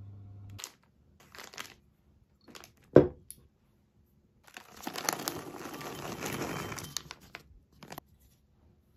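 Plastic raisin bag crinkling for about three seconds as it is handled and the raisins are tipped out into a glass bowl. Before that, a few light rustles and one sharp knock, the loudest sound, about three seconds in.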